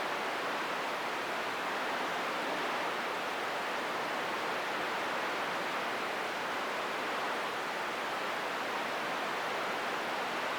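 Steady hiss of static from a CB radio receiver with no transmission coming through.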